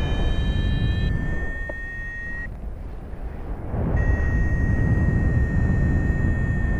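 Wind buffeting the microphone with a loud, uneven rumble that eases off briefly in the middle. A steady high electronic-sounding tone runs over it, dropping out for about a second and a half midway.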